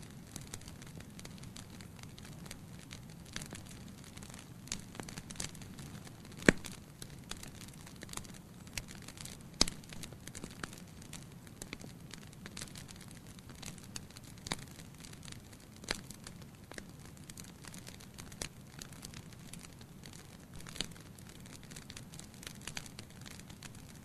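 Firewood burning in a fireplace: irregular crackles and pops from the logs over a low, steady rush of flame. The two sharpest pops come about six and a half and nine and a half seconds in.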